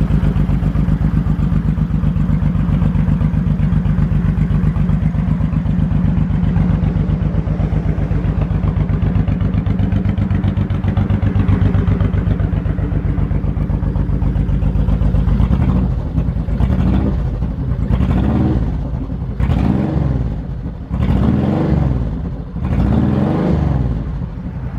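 2003 Honda VTX1800's 1,795 cc V-twin idling steadily, then revved with short throttle blips, about five of them, over the last third, each one rising and dropping back.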